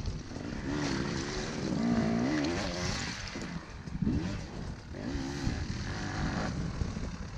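Dirt bike engines revving as they climb, their pitch wavering up and down in surges, over a constant low rumble.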